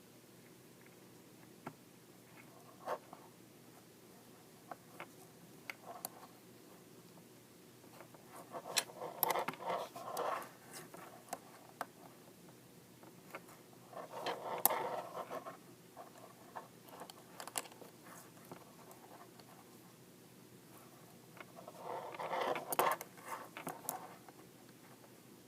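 Size 8 knitting needles clicking and scraping as stitches are knitted across a row of worsted weight yarn. Three times there is a brief louder rustle of handling.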